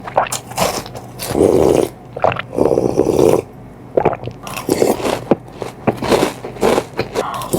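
Close-miked crunching and chewing of cereal: a run of crisp bites and chews with a few longer grinding stretches.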